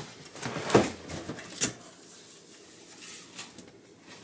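A cardboard box being handled and opened: a series of short knocks and scrapes, the loudest a thump about a second in, with two lighter ones about three seconds in.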